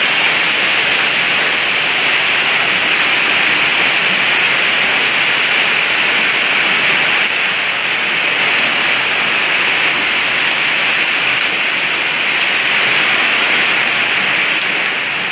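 Heavy rain mixed with hail falling hard, a steady, loud hiss of water and ice hitting the ground and roofs.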